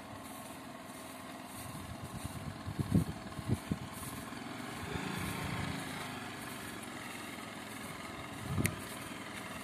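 Small motor scooter engine running at low speed, its steady note carrying on. A few low thumps about three seconds in and a short click near the end.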